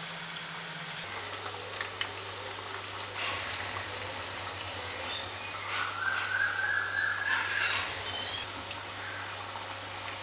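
Mung dal vadas deep-frying in hot oil: a steady sizzle, with a few light clicks as a slotted spoon turns them in the wok. From about 6 to 8 s a louder, wavering high-pitched call sounds over the sizzle.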